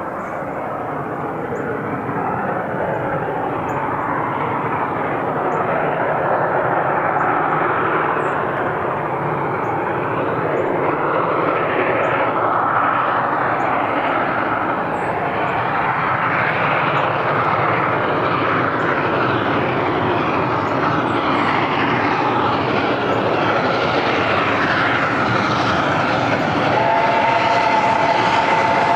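A steam train going by, its running noise growing steadily louder. About two seconds before the end a chime steam whistle starts to blow, several notes sounding together.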